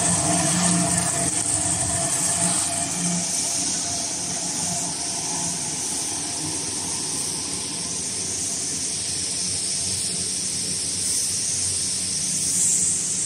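Food-processing machinery on a tomato sauce line running steadily: a mechanical hum under a constant high hiss. The hum is stronger for the first three seconds or so, then settles.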